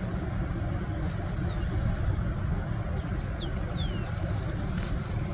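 Steady low outdoor rumble with an even hiss. Over it, birds call with a few short downward-sliding whistles and a buzzy note in the second half.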